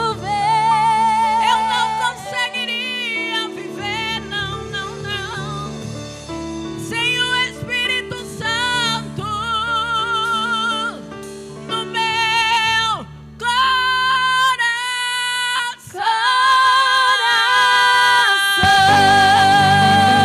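Gospel worship song ending: a singer improvises wordless melodic runs with vibrato over a sustained backing, then holds long high notes near the end.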